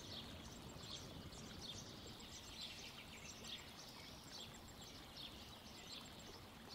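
Faint birdsong, short chirps repeating every second or so, over a steady low outdoor background hum.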